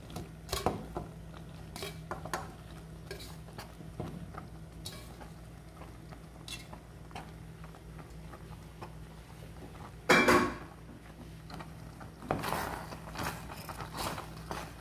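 Cooked macaroni being tipped into a metal pot of cheese sauce and stirred with a wooden spoon: scattered light clicks and knocks of spoon and pasta against the pot over a steady low hum, with one louder clatter about ten seconds in and more clattering near the end.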